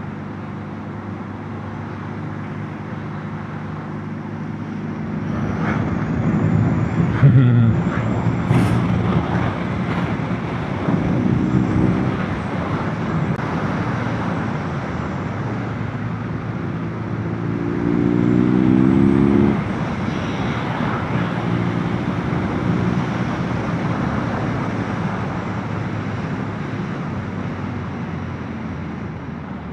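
Motorcycle engine running while riding, with wind and road noise; the revs drop once and climb twice as the bike slows and then accelerates through the gears.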